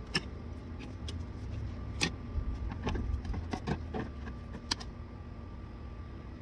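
Scattered light clicks and clinks, three of them sharper than the rest, over a steady low rumble, as tools and parts are handled during work on a vehicle.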